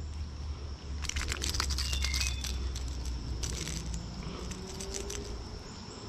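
Rustling, crackling handling noise with clusters of small clicks, busiest from about one to four seconds in, over a faint steady low rumble.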